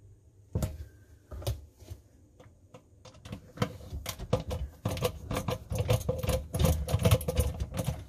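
Screwdriver with a T20 Torx bit backing screws out of a dishwasher's plastic filter housing: a run of irregular sharp clicks, sparse at first, then coming thick and fast from about three seconds in.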